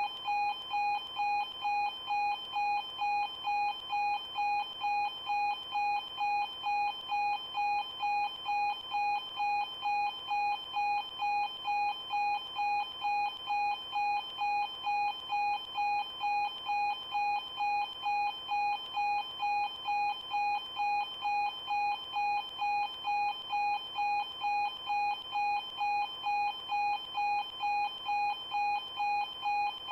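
Railway level crossing warning alarm ringing, a steady ding-ding of one bright tone repeating evenly at about one and a half strokes a second.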